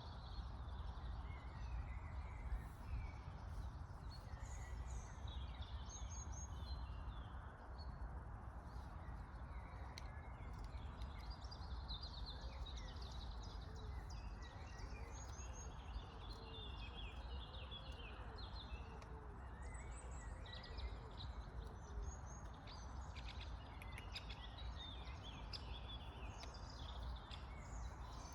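Birds chirping, with many short calls overlapping throughout, over a steady low rumble of background noise.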